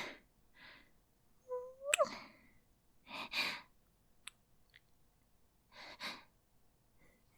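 Kissing sounds from a woman close to the microphone: several breathy exhales, a short rising hum, and two sharp lip smacks in the middle.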